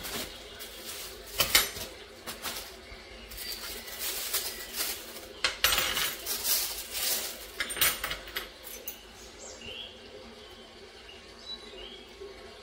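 Dishes and cutlery clinking and knocking as kitchenware is handled, with a sharp knock about a second and a half in and a busy run of clinks from about five and a half to eight seconds in.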